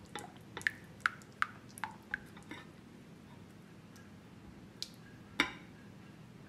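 Silicone spatula stirring melted chocolate and butter in a glass bowl: a quick run of light clicks over the first two and a half seconds, then quieter stirring, with one louder click about five and a half seconds in.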